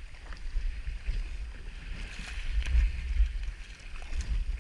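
Choppy sea waves washing and slapping against a small low boat, with wind buffeting the microphone in a rumble that swells about halfway through.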